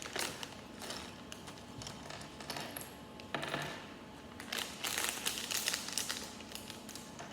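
Small plastic Lego minifigure pieces clicking and clattering as they are tipped out and handled, with brief rustles of the plastic blind bag.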